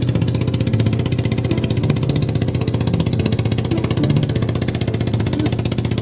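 An engine running steadily with a fast, even beat, under background music.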